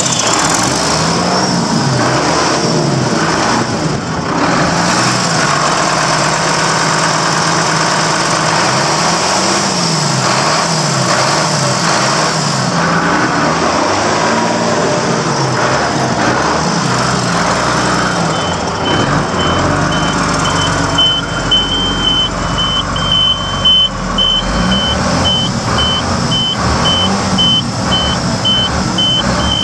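Cummins 6CTA 8.3 turbocharged inline-six diesel running in a truck, its pitch rising and falling repeatedly with engine speed in the first half, then steadier. A high, evenly repeating beep joins about two-thirds of the way through.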